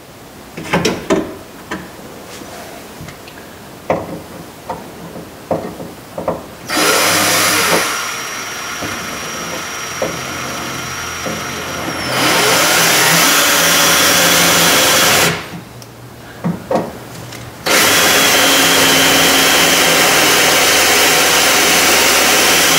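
A cordless drill boring out the window regulator's mounting rivets in a steel car door panel. The first several seconds hold scattered clicks and knocks. Then the drill runs for about eight seconds, its whine dropping and the sound growing louder partway through. It stops briefly and runs again for about five seconds.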